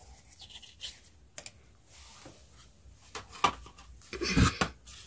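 Paper and cardboard packaging being handled: a folded paper quick start guide and box pieces rustled and set down on a table, with scattered light taps and a louder rustle about four seconds in.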